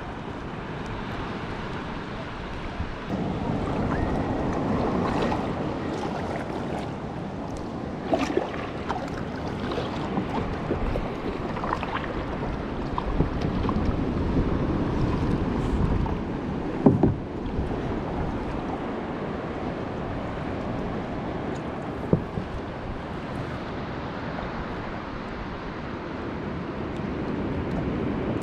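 Sea kayak on open water: steady water rush and lapping around the hull with wind on the microphone, and a few sharper splashes or knocks from the paddles scattered through it.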